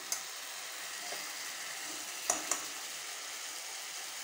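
Tomato and shallot masala sizzling in a stainless steel kadai, a steady frying hiss, with two light clinks a little past halfway.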